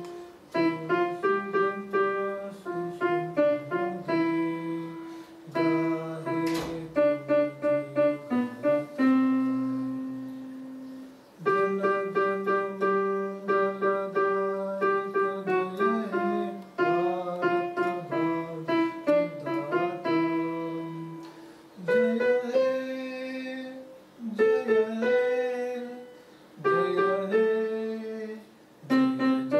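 Portable electronic keyboard played with a piano sound, a simple melody struck note by note with short breaks between phrases.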